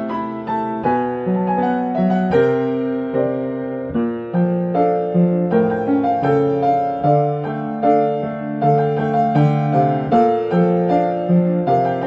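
Background piano music: slow chords with a melody on top, notes changing every half second or so.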